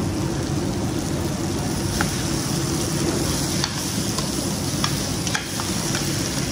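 Tomato wedges sizzling in hot mustard oil with spices in a stainless steel pan, stirred with a metal spoon that clicks against the pan a few times. A steady low rumble runs underneath.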